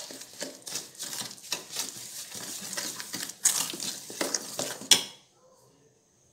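A spoon scraping and clinking against a bowl in a quick, irregular run of knocks and scrapes, stirring country sugar into mashed banana. The run stops about five seconds in.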